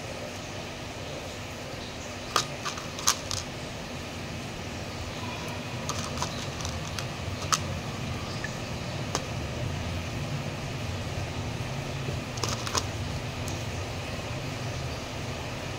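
Light clicks and taps of hands handling pear pieces and whole cloves, pushing the cloves into the fruit, scattered a few times over a steady low background hum.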